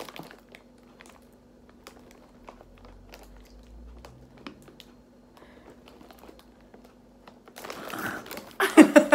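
Mostly quiet room with a faint steady hum and a few small clicks; in the last second or two, plastic snack packets crinkle as two people bite at them, ending in a brief, loud burst of voices.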